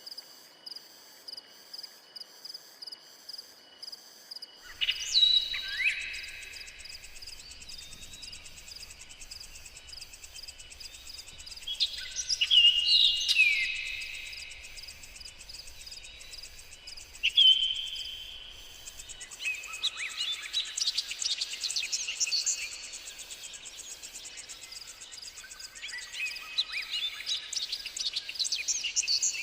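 Forest ambience of insects and wild birds: a cricket-like chirp repeating about twice a second for the first few seconds, then several birds calling and singing in quick sweeping whistles over a steady high insect buzz, with the calls busiest in the last third.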